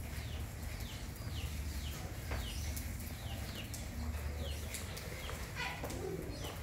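A run of short, high chirps, each falling in pitch, about two a second, with a louder, lower call that slides down near the end.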